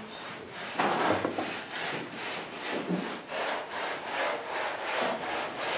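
Rasping, scraping strokes in an even rhythm of about two and a half a second, loudest about a second in.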